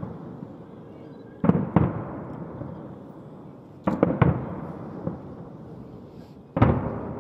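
Daytime firework bombs bursting in the air. There are three volleys about two and a half seconds apart, each of two or three sharp bangs in quick succession. Each volley's rumbling echo dies away over about a second.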